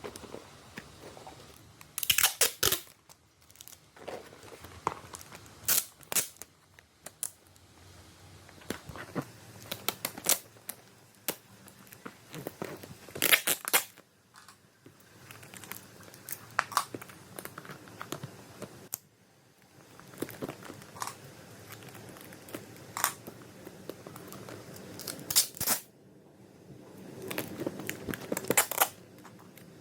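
Packaging being handled by hand: plastic and paper crinkling and tearing, in irregular bursts with scattered sharp clicks and taps.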